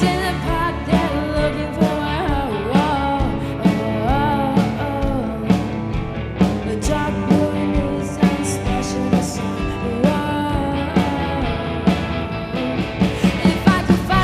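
Rock band playing live, with a lead vocalist singing over the band and steady drum hits.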